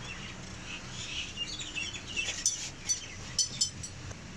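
Small birds chirping: scattered short chirps, then a quick run of sharp high chirps in the second half, over a low steady hum.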